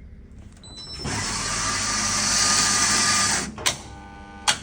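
Coffee vending machine's grinder running for about two and a half seconds as it grinds an 8-gram test dose of coffee, then stopping, followed by two sharp clicks.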